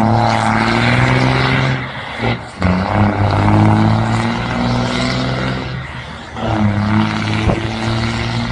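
Truck engine held at high revs in three long pulses, each a steady note that drops away briefly before it is revved again.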